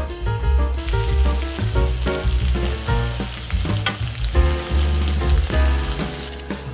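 Pork intestine (dorae-chang) and sliced onion sizzling on a hot griddle pan, starting about a second in. A silicone spatula turns the meat near the end. Background music with a heavy bass line plays underneath.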